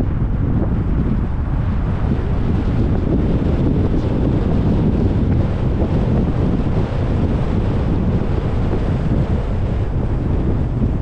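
Wind buffeting the microphone of an action camera on a moving car: a steady low rumble, with the car's road noise mixed in.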